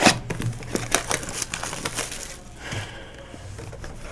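Plastic shrink-wrap and a cardboard trading-card hobby box being handled and opened by hand: a sharp knock at the start, a run of clicks and crackles, then a stretch of crinkling wrap about two and a half seconds in.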